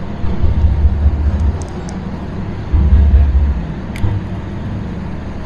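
Wind buffeting the microphone in two strong low gusts over a steady low rumble, with a single sharp click about four seconds in.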